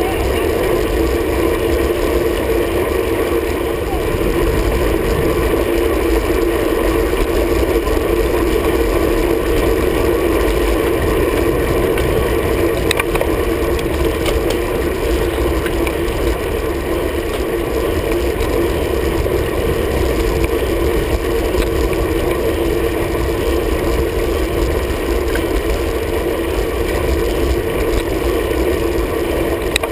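Steady wind and road noise from a road bicycle riding at speed, with a low rumble and a constant hum, as picked up by a handlebar-mounted camera.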